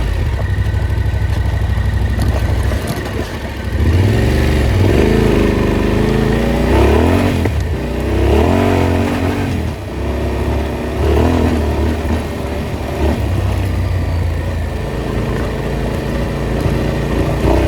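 Off-road vehicle engine revving up and down repeatedly, its pitch climbing and dropping every second or two as it accelerates and eases off along a trail.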